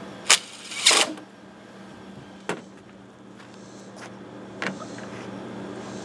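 Sharp metallic clicks and clanks of tools and parts being handled on a small engine: two loud ones within the first second, then two single clicks a couple of seconds apart, over a steady low hum.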